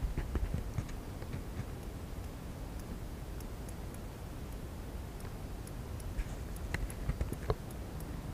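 Scattered light clicks and ticks from fishing tackle and the inflatable boat being handled, a few near the start and a cluster about six to seven and a half seconds in, over a low steady rumble.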